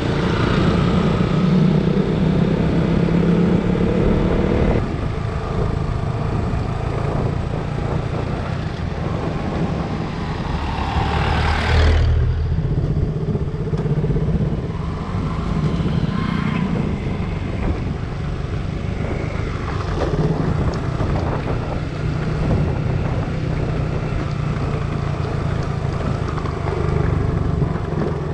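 Motorcycle engine running steadily on the move, with wind and road noise over it. About ten seconds in the engine note rises, then cuts off sharply a couple of seconds later before settling back to a steady run.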